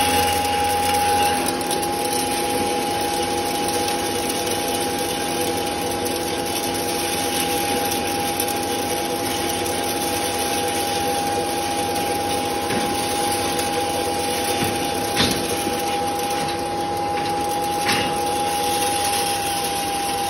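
A 3 HP suction-fed maize grinder machine running steadily, with a constant high whine over a machine rush while it draws dried maize kernels up through its intake pipe. Two brief clicks come a few seconds apart near the end.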